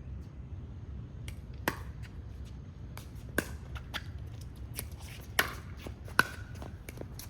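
Pickleball paddles hitting a hard plastic ball in a rally: a string of sharp pops spaced roughly half a second to a second and a half apart, the loudest near the end with a brief ring.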